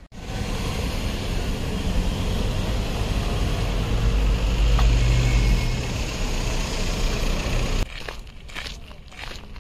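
Road traffic: a motor vehicle's deep rumble and road noise, swelling to its loudest about halfway through. It cuts off abruptly near the end, giving way to lighter scattered clicks and crackles.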